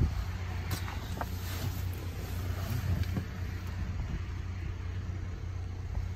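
Ford Maverick engine idling, heard from inside the cabin as a steady low hum, with a few light clicks from the phone being handled.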